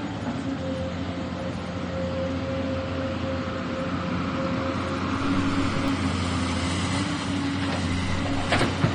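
Excavator engine running steadily with a constant hum, and a sharp knock near the end.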